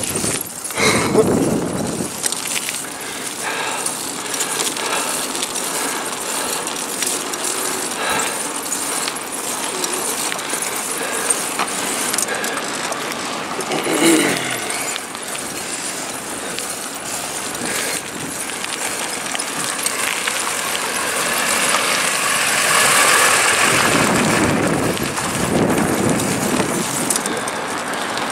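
Wind on the microphone and the rolling and rattling of a bicycle being ridden over asphalt and gravel, the wind noise swelling louder for a few seconds in the last third.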